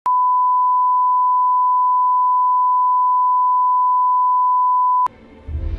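Bars-and-tone test signal: a steady 1 kHz reference tone held for about five seconds, cutting off abruptly. Near the end a low rumble comes in as music starts.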